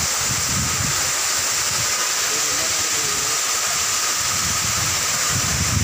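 Large waterfall pouring into a rock pool: a steady, unbroken rushing hiss.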